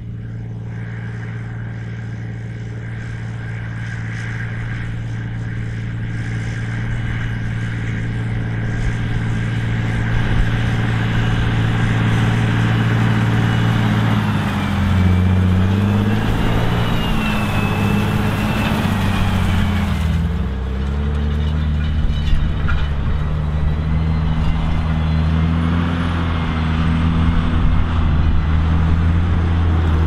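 John Deere 8520 tractor's six-cylinder diesel engine working under load as it pulls a disc cultivator through a field. It grows steadily louder over the first dozen seconds, and in the second half its pitch dips and wavers up and down as the load changes.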